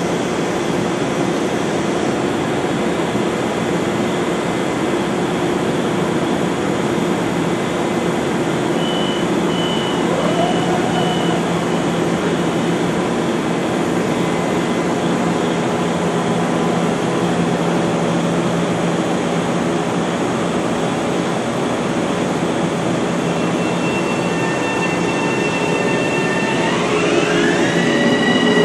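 Bombardier M7A electric multiple unit standing with its equipment humming steadily. About nine seconds in, four short high beeps sound as the doors close, and near the end the traction motors' whine rises in pitch as the train starts to pull away.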